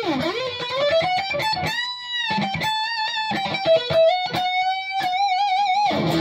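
Solar AB1.6TBS electric guitar with an Evertune bridge, played through an overdriven Marshall JCM 800: a single-note lead line with string bends, including a long held bend about two seconds in, and wide vibrato near the end. The bends pull the Evertune bridge out of its stable zone, so the pitch rises as on a normal guitar.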